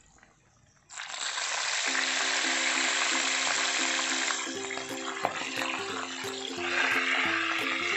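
Milkfish frying in hot oil in a wok: a loud sizzle that starts suddenly about a second in, eases a little around the middle and swells again near the end. Background music runs under it from about two seconds in.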